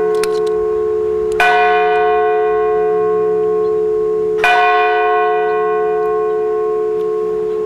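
St. Jude Church's bells tolling at noon. Strokes fall about every three seconds, and each rings on with a long hum under the next.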